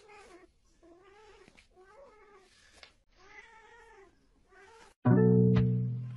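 A cat yowling in a series of drawn-out, rising-and-falling calls, about six in five seconds. About five seconds in, much louder music with held notes cuts in over it.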